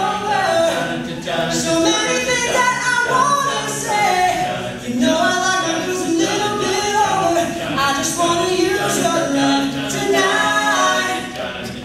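All-male a cappella group singing in close harmony, several voices at once with no instruments.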